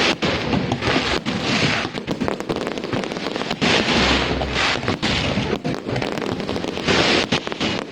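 Fireworks going off overhead: a dense run of crackling pops with several louder bursts, one with a deep thump about four seconds in.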